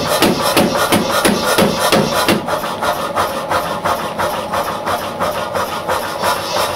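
Mechanical power hammer pounding a red-hot steel bar through a hand-held forming tool, about three blows a second, the deeper part of each blow dropping away about two seconds in.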